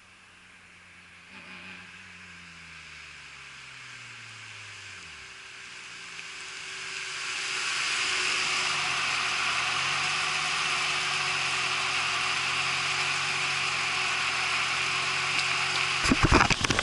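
BMW E36 328i straight-six with 260/240 cams, a 3-inch single exhaust and a Magnaflow muffler, approaching at low throttle. Its engine note falls in pitch and grows louder, then runs steadily at low revs close by with a buzzy hiss over it. A burst of loud, irregular thumps comes in the last second.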